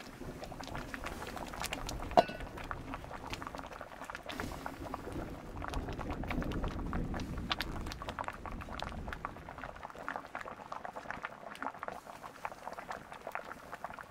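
A pot of food bubbling and crackling as it cooks over the fire, with a stretch of low rumble in the middle. About two seconds in there is a single sharp knock with a short ring, like a metal utensil striking the pot.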